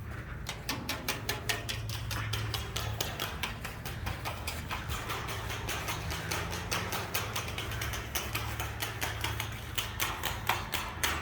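Fast, even clicking, about four or five sharp clicks a second, over a steady low hum.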